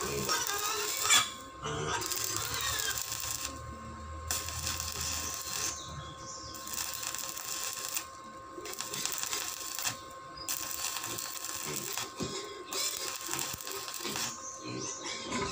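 Stick (arc) welding on a steel gate: the electrode's crackling, sizzling arc in runs of one and a half to two seconds, each broken off by a short pause, about every two seconds.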